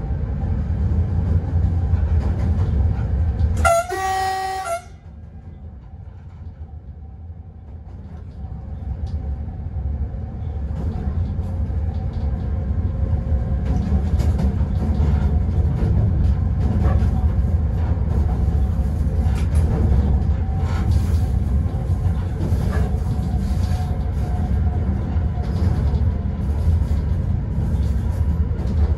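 Newag Dragon locomotive running, a steady rumble heard from the cab, with one short horn blast about four seconds in. Just after the horn the running noise falls away sharply, then builds back up over the next several seconds, with occasional clicks as it rolls along.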